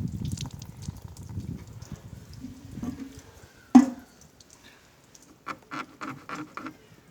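Water splashing and trickling out of the leaking Lister D radiator during a water-fill leak test, followed by one sharp knock about four seconds in and a quick run of about six short pitched calls near the end.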